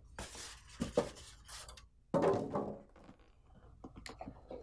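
Styrofoam packing end caps scraping and rubbing against a printer's plastic body as they are pulled off and handled, with a louder scrape about two seconds in and a few light taps near the end.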